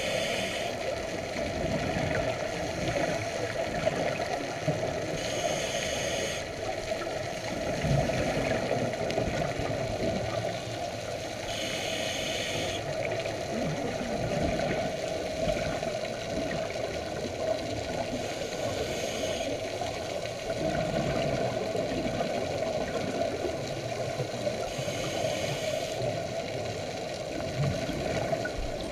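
Underwater recording of a scuba diver breathing through a regulator: a steady watery rush, with a short burst of exhaled bubbles about every six seconds.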